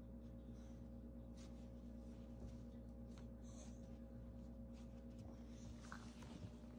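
Faint scuffling and rustling of two beagle puppies wrestling, paws and bodies moving on a rug, over a steady low hum.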